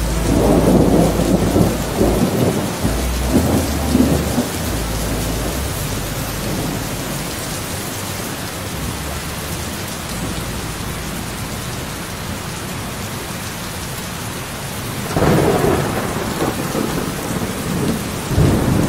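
Thunderstorm: steady rain hiss, with thunder rumbling through the first few seconds and rolling in again about fifteen seconds in.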